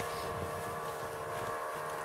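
A steady, even-pitched mechanical drone made of several held tones, running without change, with a brief low rustle of handling about half a second in.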